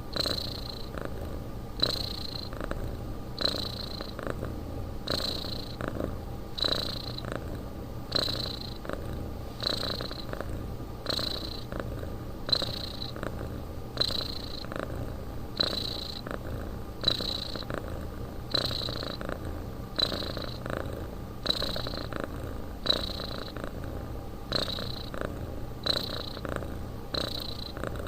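Domestic cat snoring in its sleep: a regular breath about every second and a half, each with a short high-pitched note.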